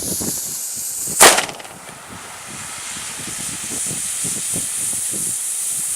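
Burning fuse of a Lesli QB Blizzard cube firecracker hissing, then about a second in a single sharp crack as it goes off, a fizzle rather than a full bang: the charge is a dud. Another fuse hisses through the rest.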